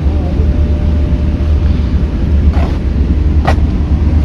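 Steady low rumble of a moored car ferry's machinery with a faint hum above it. Two short knocks come about two and a half and three and a half seconds in.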